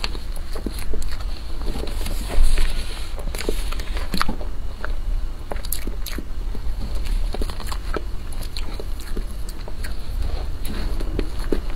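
Close-miked eating of a whipped-cream cake: wet chewing and mouth smacks with many short irregular clicks, and a metal spoon scraping through the cream, over a steady low hum.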